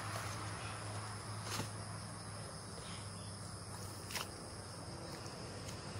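Field insects, crickets, chirring steadily in high thin tones over a faint low hum, with two sharp clicks about a second and a half and about four seconds in.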